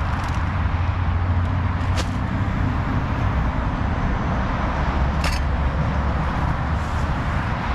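Steady rumble of road traffic circling the roundabout, with two brief crackles about two and five seconds in as ration-pack pouches are handled.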